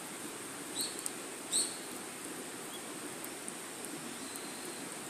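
Small wood fire burning in a fire pit, a steady hiss with a few faint crackles. Two short high chirps stand out about a second and a second and a half in.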